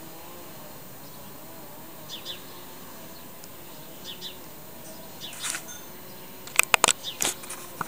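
A distant brush cutter or mower engine drones faintly, its pitch wavering, while birds chirp a few times. Near the end comes a quick run of sharp clicks and knocks close to the microphone.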